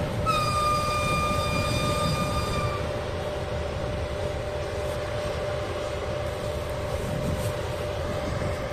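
An EP1M electric locomotive's whistle gives one long, high note for about two and a half seconds, dipping slightly in pitch just before it stops. A single long whistle is the signal before a train departs. A steady hum and low rumble from the standing locomotive continue underneath.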